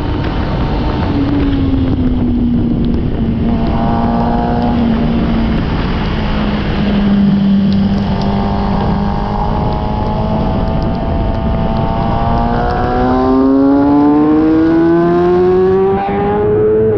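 Sport motorcycle engine under way on a circuit, its revs easing down early, holding steady for several seconds, then climbing steadily near the end as it accelerates.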